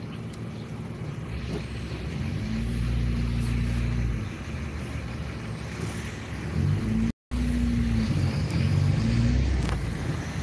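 A car's engine and road noise, heard from inside the cabin in slow traffic, the engine note rising and falling twice as the car pulls forward and eases off. The audio cuts out for an instant about seven seconds in.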